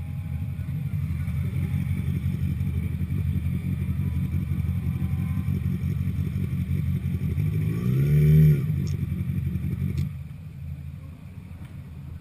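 Motorcycle engine idling with a steady low rumble; about eight seconds in the revs briefly rise and fall, the loudest moment, and about ten seconds in the rumble becomes quieter.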